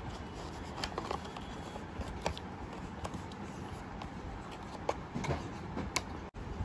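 Small cardboard earphone box being handled and opened by hand: scattered soft scrapes, rustles and a few light clicks and taps of cardboard at irregular moments.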